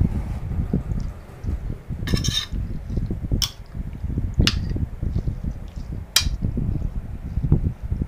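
Metal spoon mixing raw pork pieces with their seasoning in a plate: soft, irregular thuds of the meat being turned, a short scrape about two seconds in, and the spoon clinking against the plate three times.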